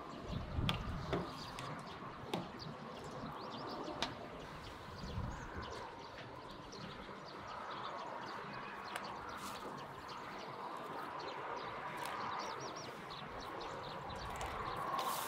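Small birds chirping, many short chirps over a steady background hum, with a few sharp clicks and low knocks in the first five seconds.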